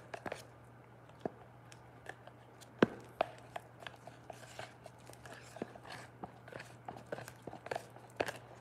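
A stir stick scraping and tapping inside a plastic mixing container of epoxy resin, held close to the microphone. It makes irregular soft clicks and scrapes, with one sharper knock about three seconds in.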